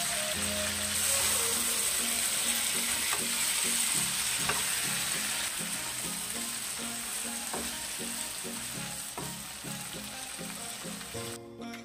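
Masala-coated brinjals sizzling steadily as they fry in oil in a nonstick kadai, with a metal spatula clinking against the pan now and then. The sizzle grows weaker and cuts off near the end.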